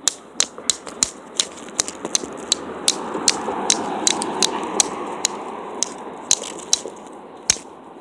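Sharp cracks of a dry stick being snapped into pieces, about two a second. Under them a pickup truck drives past, its noise swelling to a peak about four seconds in and then fading.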